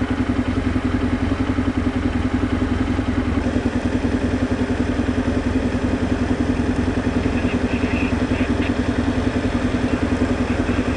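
Motorboat engine running steadily at constant speed, with a fast, even throb.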